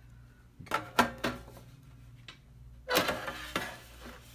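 Handling noise: a few sharp clicks about a second in, then a longer scraping rustle from about three seconds in, over a low steady hum.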